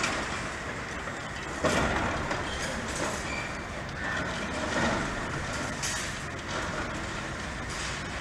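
High-reach demolition excavator working on a concrete building: its engine running under a steady clatter of breaking concrete and debris, with a sudden louder crash about one and a half seconds in.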